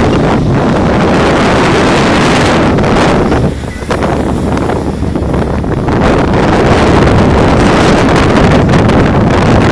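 Wind buffeting a phone's microphone on the open deck of a moving ferry, a loud rushing noise that eases briefly about three and a half seconds in and then comes back stronger.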